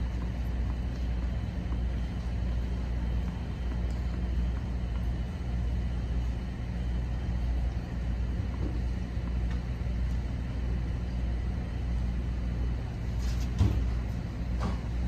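Steady low rumble of outdoor background noise, with two sharp knocks near the end, the second as a tennis racket strikes the ball on a serve.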